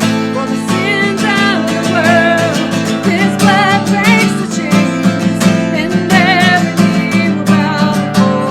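Music: a strummed acoustic guitar keeping up a steady rhythm under a wavering, vibrato-laden melody line.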